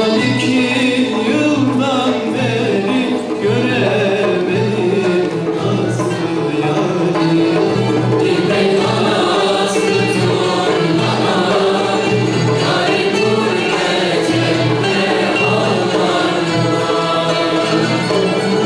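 A male soloist singing a Turkish folk song in the Hüseyni makam, with a Turkish art music ensemble accompanying him.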